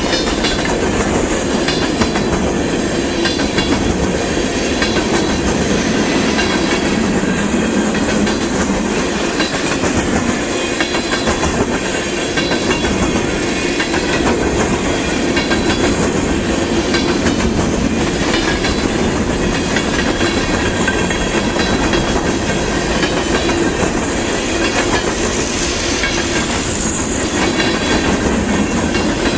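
Canadian Pacific freight train rolling past close by: a loud, steady rumble of cars, their wheels clacking over the rail joints.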